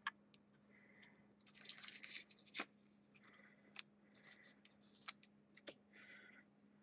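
Faint handling of trading cards on a mat: soft sliding swishes with about five light clicks and taps spread through.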